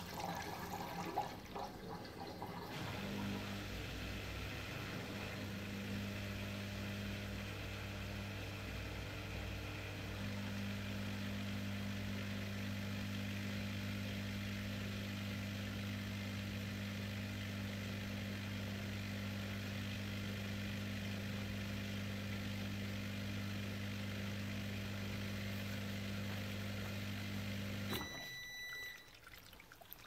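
Neff dishwasher drain pump running after a reset, a steady electric hum with water pouring and gurgling through as it pumps the sump out. It starts a few seconds in and cuts off suddenly about two seconds before the end, followed by a short high beep.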